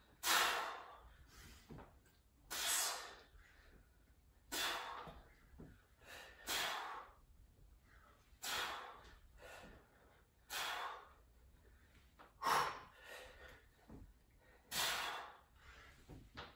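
Heavy, audible breathing during push-ups: a short noisy breath about every two seconds, paced with each repetition, air drawn in on the way down and pushed out on the way up.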